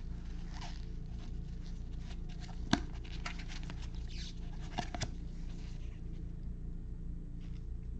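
A pack of baseball cards being unwrapped and the cards handled and fanned by gloved hands: faint rustling and sliding with a few sharp clicks, the loudest a little under three seconds in and two more around five seconds, over a steady low hum.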